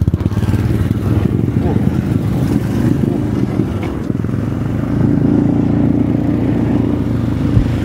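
Motorcycle engine running while under way, with low rumble from wind and clothing brushing the microphone. About five seconds in, the engine note becomes louder and steadier.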